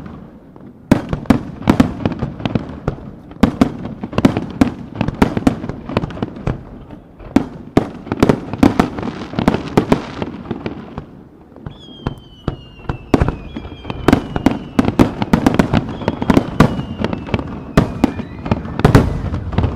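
Aerial firework shells bursting in a dense, rapid run of sharp bangs. In the second half, several high whistles glide downward in pitch over the bangs.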